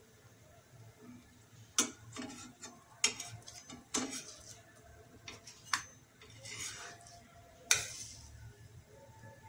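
Metal spatula clinking and scraping against a non-stick frying pan as it loosens the edge of a thin paratha. It gives five sharp clicks a second or two apart, with softer scraping between them.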